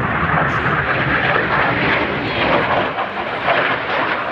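Display aircraft flying overhead: a loud, steady rushing engine noise.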